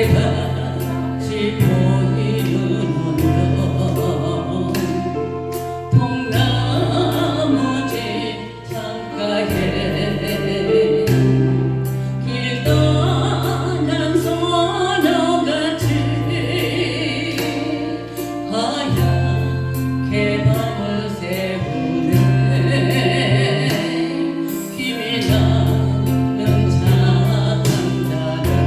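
A Korean song sung over a backing track with held bass notes and a steady drum beat.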